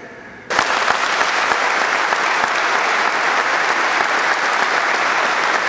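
An audience applauding: the clapping breaks out suddenly about half a second in and then goes on steadily.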